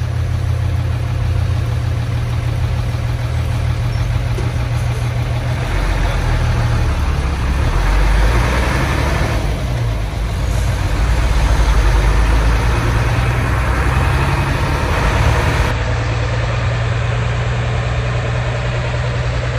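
Old Hino bus diesel engine running under way, heard from inside the cabin, with a deep, growling exhaust. Midway the engine note shifts lower and gets louder for several seconds, then settles back to a steady run.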